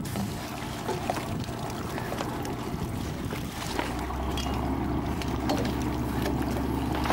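Water splashing and sloshing as a scuba diver swims up to a boat's boarding ladder, with scattered small splashes over a steady low hum that grows louder about four seconds in.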